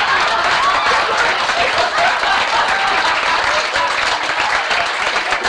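Audience applauding, a dense steady clapping with voices mixed in.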